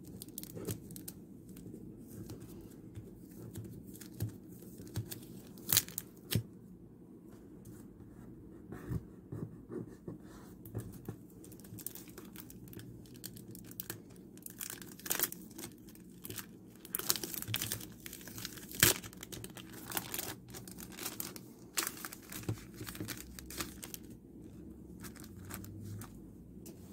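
Thin plastic photocard sleeves crinkling and tape being peeled off them by hand, in irregular crackles and sharp ticks, busiest through the middle of the stretch.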